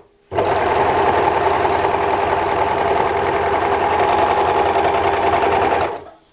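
W6 N454D overlock machine running at steady speed, stitching a gathering seam through cotton fabric with the differential feed raised; it starts just after the beginning and stops near the end.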